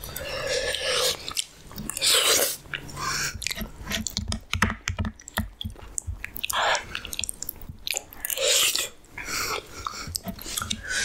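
Close-miked mouth sounds of someone eating a halwa puri meal: irregular wet chewing clicks and biting, with a few louder bursts spread through.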